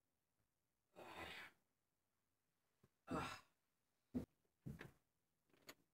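Faint breathy sighs, one about a second in and a louder one about three seconds in, followed by a few short bumps and rustles of someone moving close by.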